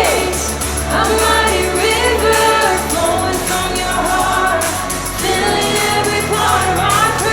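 Worship band music with voices singing long, sliding notes without clear words, over a steady bass and a ticking beat.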